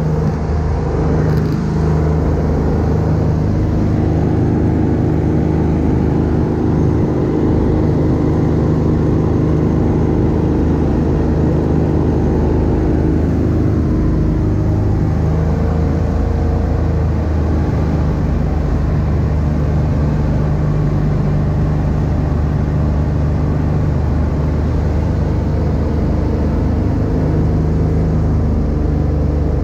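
Rotax 582 two-stroke engine and propeller of an X-Air microlight running steadily in flight, heard from the cockpit.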